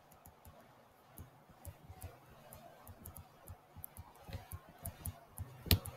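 Faint, irregular clicks and taps of a stylus on a tablet screen during handwriting, with one louder tap near the end.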